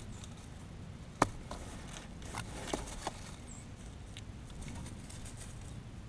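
A sharp click about a second in, then a few softer clicks and ticks and one short high chirp, over steady low outdoor background noise.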